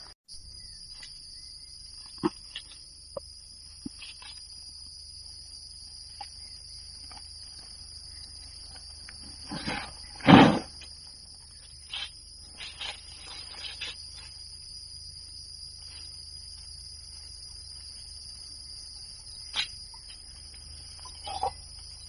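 Steady, high-pitched insect chorus, with scattered short knocks and rustles of handling and one louder thump about ten seconds in.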